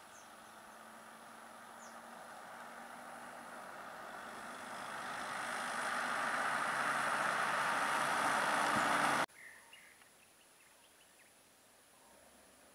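A pickup truck approaches and drives past, its engine and tyre noise building steadily for about nine seconds before cutting off suddenly. Faint bird chirps follow in the quieter remainder.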